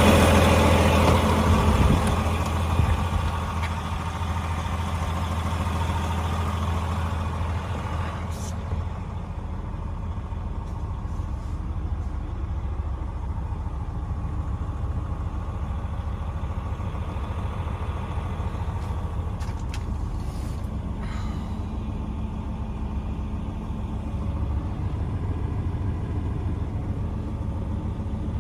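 DAF XG 480 truck's diesel engine running. It is louder for the first couple of seconds, then settles to a steady idle. There is a sharp click about eight seconds in and another around twenty-one seconds.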